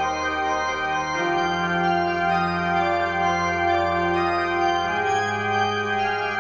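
Organ playing slow, sustained chords that change about a second in and again near five seconds.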